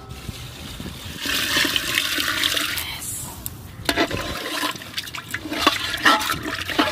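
Water poured from a plastic jug into a large aluminium cooking pot of khichuri, a gushing splash for about two seconds. Then a ladle stirs the liquid and knocks against the metal pot a few times.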